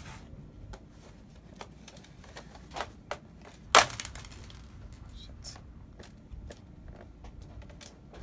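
Plastic retaining clips of an Acer Chromebook's bottom cover snapping loose as the cover is pried off along its edge: scattered small clicks and handling noise, with one sharp, loud snap about four seconds in.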